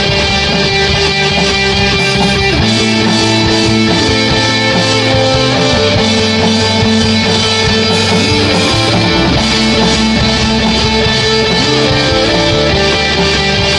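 Instrumental section of a rock song, with no singing: electric guitar-led music playing loud and steady, its chords changing every couple of seconds.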